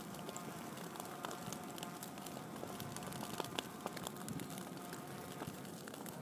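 Dry grass burning: scattered crackles and pops over a steady hiss, with a faint steady whine underneath.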